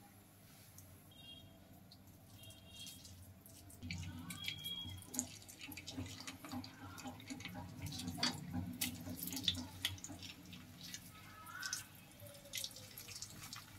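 Cabbage pakoda batter deep-frying in hot oil in a kadai: the oil sizzles with many sharp crackles and pops. The frying starts about four seconds in, as the first fritters go in, and goes on as more are dropped in.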